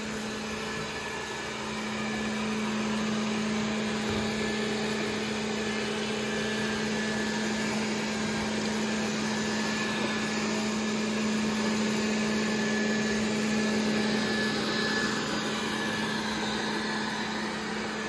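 Xiaomi Mop 2 robot vacuum cleaner running as it cleans the floor: a steady motor-and-fan hum with one low held tone over an even hiss.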